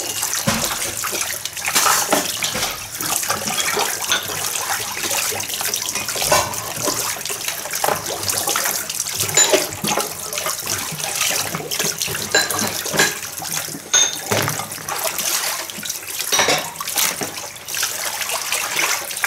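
Water pouring from a hose into a plastic basin, with steady splashing and sloshing as hands rinse vegetables and a plastic dish in basins of water.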